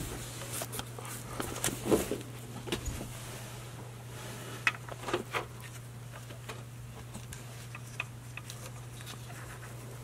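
Faint scattered clicks and light metal knocks of a timing chain tensioner being fitted into the back of a 2.4 L Ecotec engine block by hand, most of them in the first few seconds, over a steady low hum.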